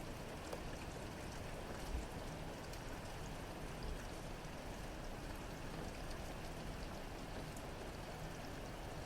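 Steady rain falling, with scattered faint drop ticks. There is a short low thump about two seconds in.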